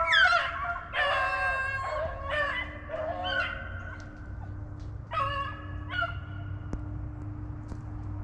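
A pack of rabbit hounds baying on a running rabbit's trail: several drawn-out, pitched calls overlapping in the first few seconds, then two more after a pause, over a steady low hum.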